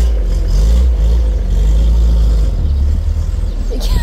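1989 Marlin Roadster's engine running at low revs as the open two-seater pulls away in first gear, its note shifting a little. A brief sharp noise sounds near the end.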